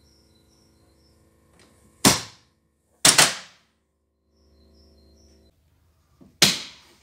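Electrical switchgear in the grid-connection cabinets clunking over as mains power returns. There is one loud clack about two seconds in, a double clack a second later, and another near the end, with a faint electrical hum in between.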